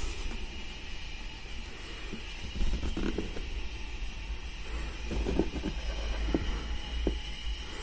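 Sound effects from the DCC sound decoder in a Rapido Trains L&M 'Lion' model steam locomotive, played through its small onboard speaker: a steady hiss over a low hum, with a few irregular knocks.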